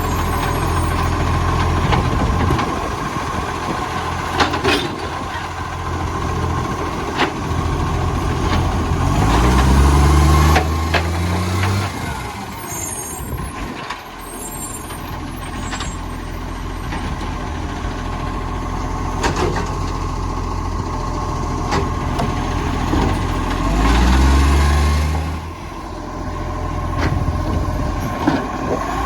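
Garbage truck's diesel engine running with an exhaust leak, idling and revving up twice, with a few sharp clicks.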